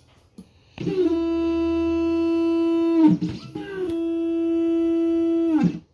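Xhorse Dolphin XP-005L key cutting machine starting up after power-on: its motors drive the mechanism in two moves, each a steady pitched whine that climbs in pitch as it speeds up, holds, then drops away as it stops. There is a brief clatter about three seconds in, between the two moves.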